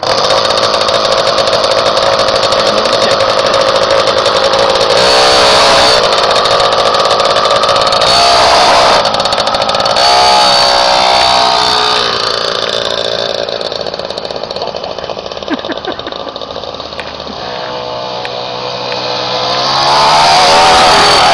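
Small engine fitted to a bicycle starting abruptly and running, its pitch rising and falling as it is revved several times. It grows fainter as the bike rides away and loud again near the end as it comes back.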